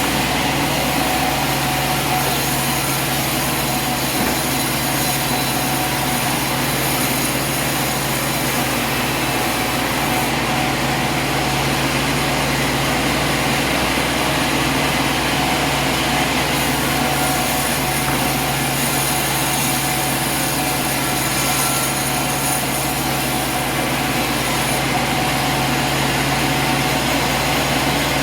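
Sawmill machinery running steadily: a constant motor hum under an even, high whirring hiss, with no change in pace.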